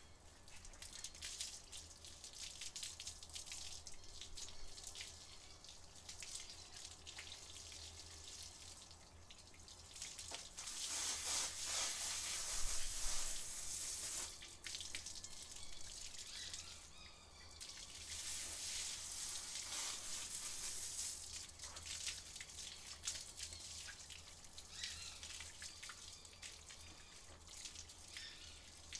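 Garden hose water spraying onto a dog's coat and splattering on wet concrete, with steady dripping and pattering throughout. The spray hiss grows louder for a few seconds about ten seconds in, and again about eighteen seconds in.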